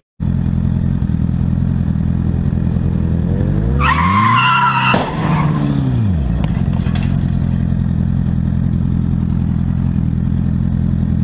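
A steady engine drone runs throughout. About four seconds in, an engine revs up and back down while tyres squeal briefly, from a pickup truck spinning its tyres into smoke, with a sharp crack at the peak.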